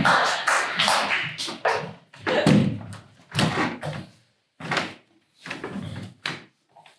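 Audience applause dying away, then a few separate, irregular thumps and knocks.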